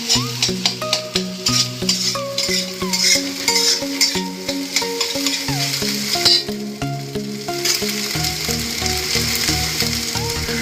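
Eggs sizzling in oil as they are scrambled in an aluminium kadai, with a steel spatula scraping and tapping against the pan many times. Background music with a melody plays over it.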